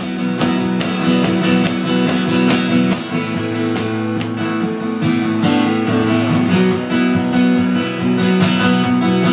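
Acoustic guitar strummed steadily with fast, regular strokes, played live as an instrumental break between verses.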